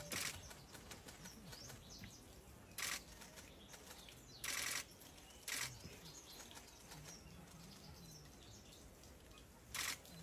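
About five short hissing bursts, each under half a second and the longest near the middle, over a faint background of distant murmur and bird chirps.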